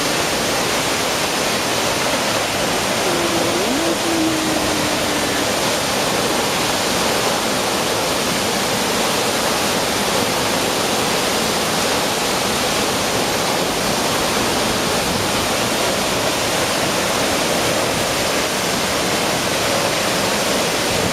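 Steady, loud rush of a large waterfall's falling water.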